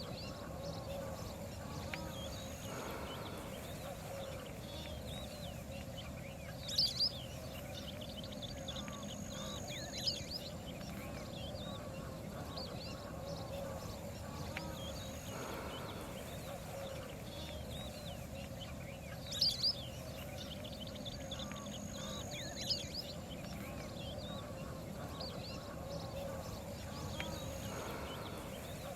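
Waterfowl calling over a steady background hum, with many brief higher calls. A loud double call about seven seconds in comes back with the same sequence about twelve and a half seconds later, as if the track is looped.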